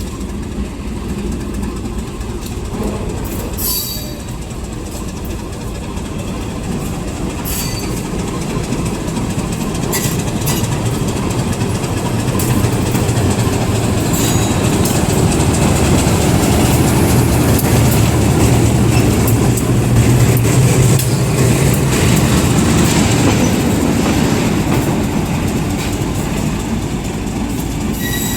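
Diesel train passing on the track, its low engine rumble building to a peak past the middle and then easing off, with wheels clicking over the rails and brief high squeals here and there.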